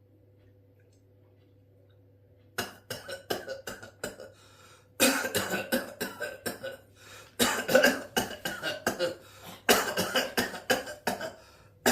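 A person coughing in repeated fits, several quick coughs per fit with short breaks between: a lingering cough that has not cleared for three months. The coughing starts about two and a half seconds in, after near silence with a low hum.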